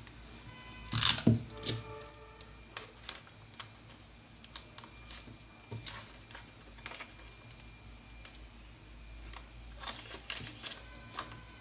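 Paper pattern pieces being handled and stuck together: a short loud tearing sound about a second in, a second smaller one just after, then light rustling, crinkling and small taps of paper.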